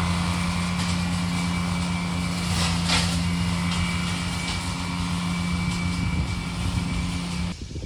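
Steiner 430 tractor running with its Ventrac flail mower: a steady engine drone with a thin high whine above it. The sound cuts off suddenly near the end.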